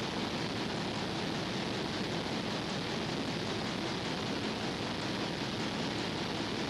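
Steady, even hiss with no distinct events: the background noise of an old videotape transfer, with no work sounds heard.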